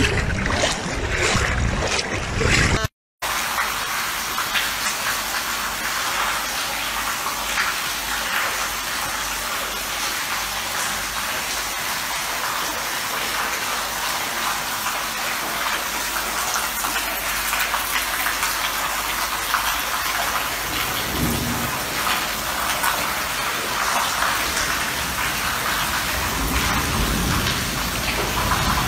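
Floodwater rushing and splashing in a steady, continuous hiss, broken by a short gap about three seconds in.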